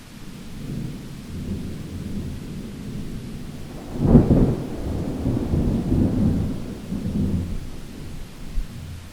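A peal of thunder: a low rumble builds, a loud clap breaks about four seconds in, and the rumble rolls on and fades.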